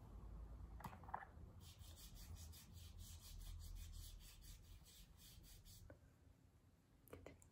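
Faint, quick rhythmic rubbing, about five strokes a second for roughly four seconds, over a low hum. A soft knock about a second in and another near the end.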